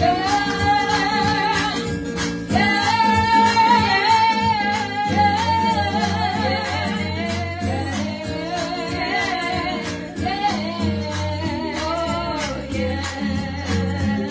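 Two women singing a gospel song through handheld microphones, holding long wavering notes over an instrumental accompaniment with a steady beat.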